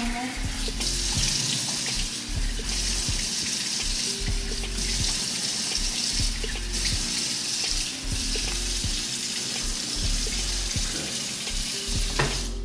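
Kitchen faucet running into a stainless steel sink as cupped hands splash water onto the face, rinsing off a foaming facial cleanser.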